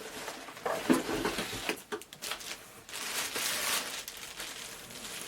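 Packaging being handled during an unboxing: rustling and crinkling with a few short knocks, the busiest rustling about three seconds in.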